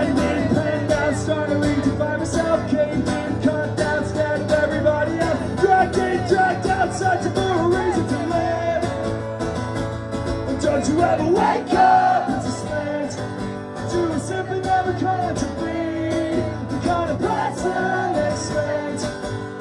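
Live music: a man singing to his own strummed acoustic guitar, amplified through a PA.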